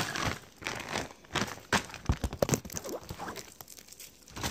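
Rustling and crinkling with scattered knocks and clicks close to the microphone, like wrappers and small things being handled.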